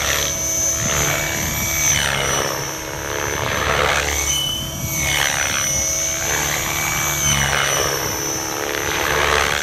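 Electric radio-controlled helicopter, an Align T-Rex 600E, flying aerobatics: a steady high whine from its electric drive under a rotor whoosh that swells and falls again every second or two as it manoeuvres.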